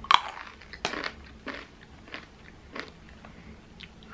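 A person biting and chewing crunchy coated peanuts (double-crunch peanuts), with about six sharp crunches spread over the few seconds.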